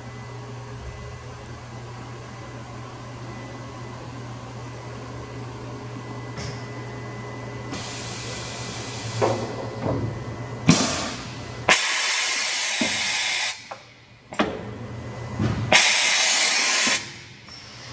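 Johnford VMC-2024 vertical machining center humming steadily. From about halfway come a series of loud hissing compressed-air blasts, two of them over a second long, as the carousel tool changer swings in to the spindle during an automatic tool change.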